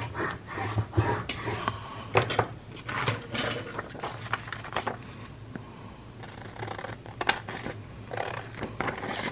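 Paper being handled and cut with scissors: irregular rustles, taps and snips of cardstock over a faint steady hum.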